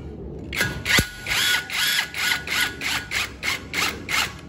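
Cordless impact driver run in about ten short bursts, driving a screw to fix a brake fluid reservoir to a steel frame tube, with a sharp click about a second in.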